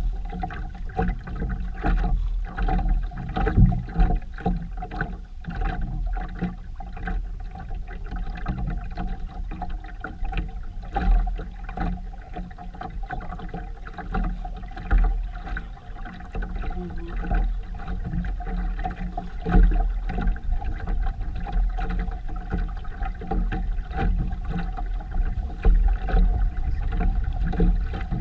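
A sailboat under way: a steady wash of water and wind noise with irregular low buffeting and a steady faint hum.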